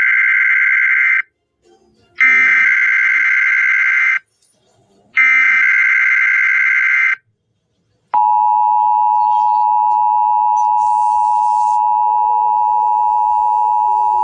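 Emergency Alert System SAME header: three bursts of warbling digital data tones, each about two seconds long with a short pause between them, encoding the county codes of a required weekly test. About a second after the third burst, the steady two-tone warning alarm begins and holds.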